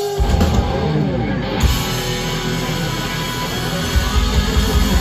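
Live rock band playing loud: electric guitars and a drum kit, with the band coming in together right at the start and the drums driving harder from about four seconds in.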